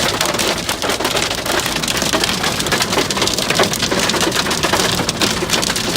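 Hailstones pelting a car's roof and windows, heard from inside the car as a dense, steady patter of countless small hits.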